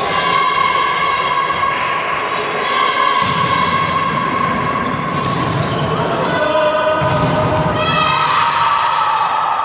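Volleyball rally: a string of sharp hits of hands and forearms on the ball, the clearest about five and seven seconds in, ringing in a large sports hall.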